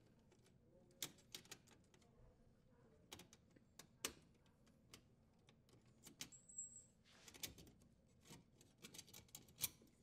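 Irregular light clicks and taps of power wires and a plastic strain relief being worked out of a dishwasher's sheet-metal junction box, with a slightly louder click about four seconds in and another just before the end.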